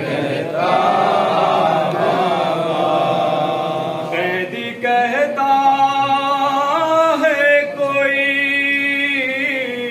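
A man chanting a noha, a Shia mourning lament in Urdu, unaccompanied into a microphone. The sound is fuller and denser for the first four seconds, then a single voice holds long notes with a wavering pitch.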